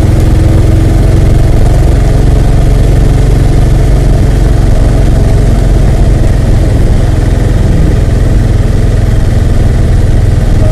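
The engine of a moving vehicle running steadily, a loud, even low rumble.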